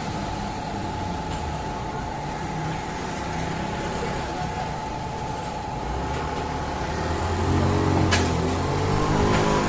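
Steady street traffic noise with a constant hum. About seven seconds in, a vehicle engine's low rumble grows louder, and a single sharp click comes about a second later.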